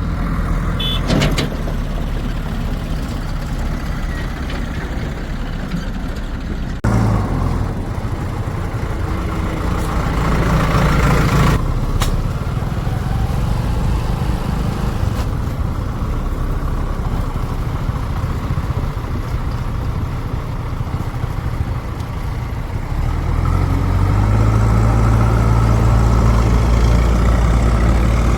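Diesel engines of farm tractors and a backhoe loader running steadily, with the sound shifting abruptly a couple of times and growing louder near the end as an engine pulls harder.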